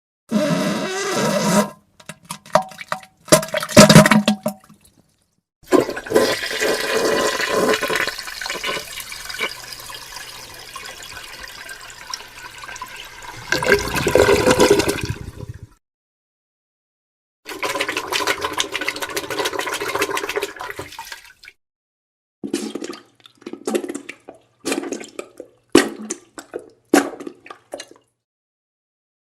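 A string of separate toilet sound effects with silent gaps between them: short wet fart and diarrhea bursts, and a toilet flushing for about ten seconds in the middle that swells near its end.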